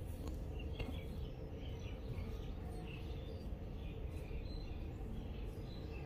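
Outdoor ambience: a steady low rumble with faint, scattered bird chirps throughout.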